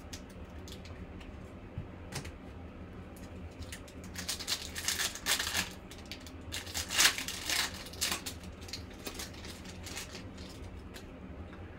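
Foil trading-card pack wrapper being slit and torn open, crackling in two spells around four and seven seconds in, with small clicks of cards and plastic sleeves being handled.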